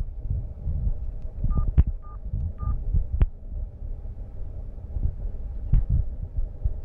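Rumbling handling noise and soft thumps from a hand gripping and turning a BlackBerry 7290 phone close to the microphone. About a second and a half in come three short beeps at one pitch, roughly half a second apart, with a couple of sharp clicks.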